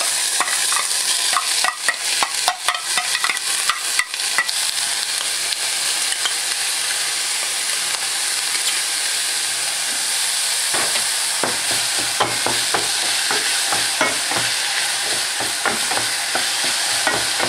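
Chopped yellow onion and garlic sizzling as they fry in a hot stainless steel saucepan, a steady hiss. A spoon clicks and scrapes against the pan in the first few seconds and again through the second half as the onion is stirred.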